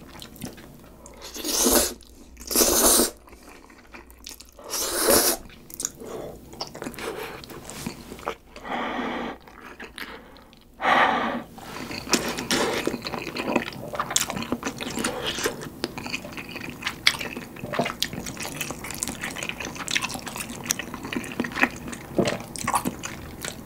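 A person slurping up saucy instant stir-fried noodles (Samyang Carbo Buldak) in several loud, hissy pulls over the first half, then chewing a mouthful with wet, sticky clicks and smacks, close to the microphone.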